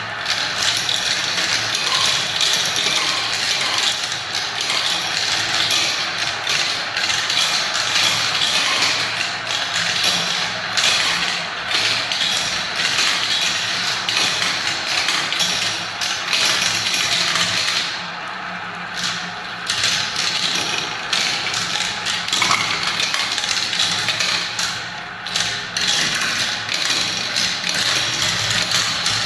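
Many small balls rolling and clattering down the spiral ramps of a marble run, a dense, continuous rattle of clicks that thins out briefly twice in the second half.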